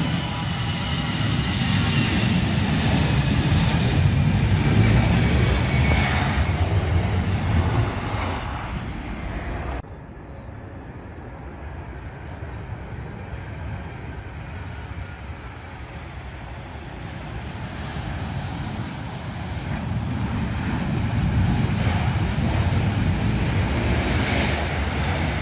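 Jet airliner engines: an easyJet Airbus A320's engines on departure, a loud rumble with a whine falling in pitch. After a cut about ten seconds in, a quieter Boeing 737 engine rumble that grows louder again near the end.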